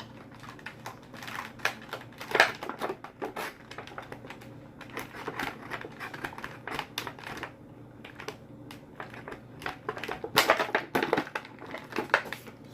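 Hands freeing a boxed action figure from its plastic packaging tray and twist-tie wires: irregular clicks, taps and crinkles, with a denser run of clicks about ten seconds in.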